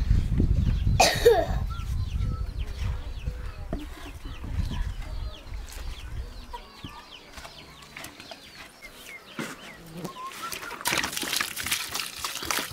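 Chickens clucking, with a string of short, quick calls through the middle. A low rumble runs under the first half, and a louder noisy stretch comes near the end.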